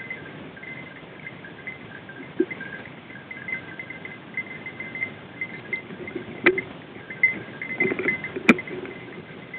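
Brush and dry branches crackling and rustling as someone pushes on foot through dense scrub, with two sharp twig snaps in the second half.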